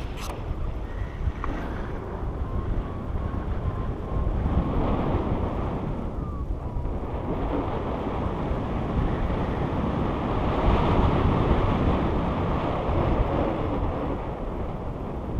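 Wind rushing and buffeting over the microphone of a paraglider's camera as the pilot descends in a stable stall, swelling and easing.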